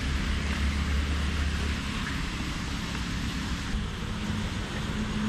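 Tata Nexon idling close up: a steady hiss with a low hum under it, and a deeper rumble that drops away about two seconds in.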